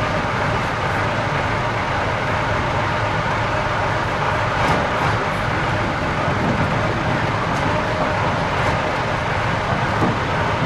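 A heavy diesel engine running steadily, with no revving.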